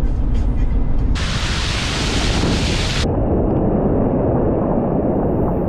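Low road rumble from inside a van's cab for about a second, then a burst of bright hiss that cuts in and out sharply and lasts about two seconds. After it comes the dull, steady roar of whitewater rapids rushing around a kayak.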